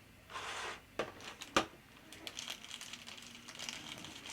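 Hands handling packaging and small plastic parts: a short rustle, two sharp clicks, then light crinkling and ticking.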